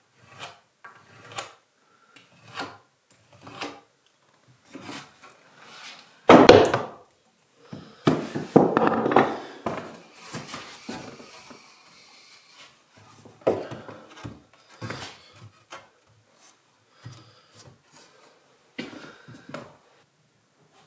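Timber being handled and worked: a string of irregular wooden knocks and scrapes, louder about six seconds in and again a couple of seconds later.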